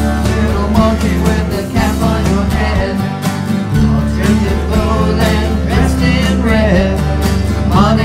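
Country-bluegrass band music: strummed guitars over a steady bass and beat, with a melody line that bends in pitch coming in about halfway through.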